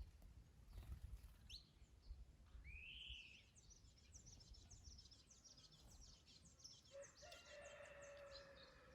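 Garden birds chirping, with a quick run of high trilling notes through the middle and a rising-falling whistled call about three seconds in. A rooster crows once near the end, one drawn-out call. Low wind rumble on the microphone at the start.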